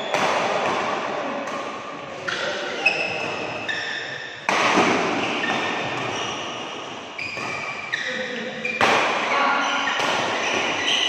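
Badminton rally: sharp racket strikes on the shuttlecock, one every one to two and a half seconds, echoing in a large hall, with shoes squeaking in short high chirps on the court floor between the hits.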